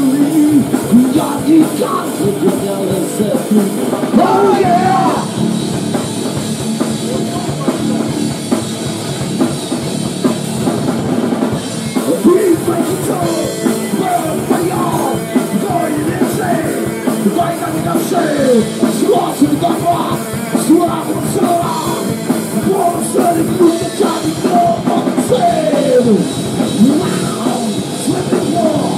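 A grunge rock band playing loud and live, with a drum kit driving the song.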